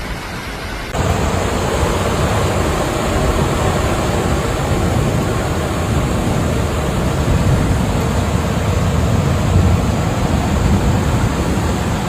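Steady rushing noise of floodwater, becoming louder and fuller about a second in.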